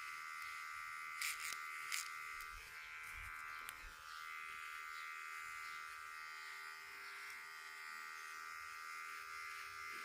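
Cordless electric hair trimmer running with a steady buzz, a few brief clicks about a second and two seconds in.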